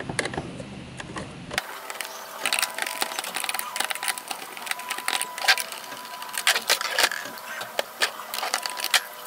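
Irregular small clicks and ticks from a Phillips screwdriver turning screws out of a plastic Nerf Rival Kronos blaster's slide, with the plastic shell being handled.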